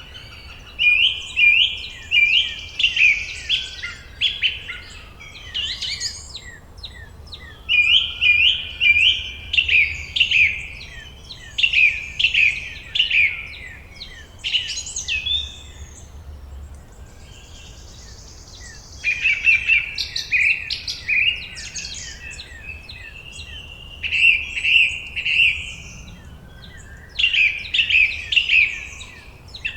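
Songbirds singing: repeated song phrases of quick, sharp chirping notes, each phrase lasting a couple of seconds, about six phrases with short pauses between them.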